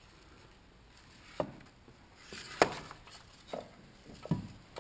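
Four short, sharp knocks about a second apart, the second the loudest.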